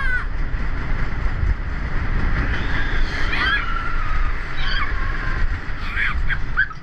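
Roller coaster train rumbling steadily along its track, with riders letting out high-pitched screams several times.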